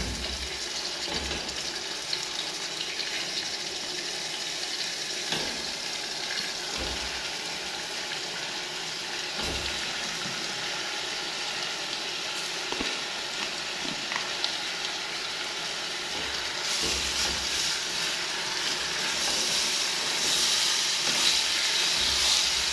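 Chopped greens sizzling in a stainless steel pot as they are stirred with a wooden spoon, with a few soft knocks of the spoon against the pot. The sizzle grows louder about two-thirds of the way through.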